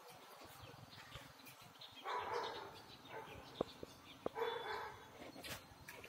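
A dog barking in two short bouts about two seconds apart, with a few sharp knocks in between.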